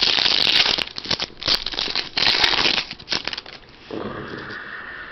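Wrapper of a Fleer Ultra football card pack crinkling and tearing as it is ripped open. The crackling dies down after about three and a half seconds.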